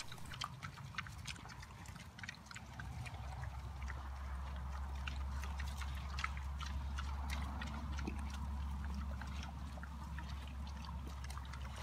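Farmyard sounds from the chickens and pigs: many scattered soft clicks and scuffs, with a low steady rumble setting in about four seconds in.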